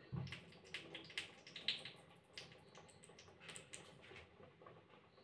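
Oil heating in a steel ladle held over a gas flame, crackling and ticking faintly with irregular small pops that thin out after about two seconds.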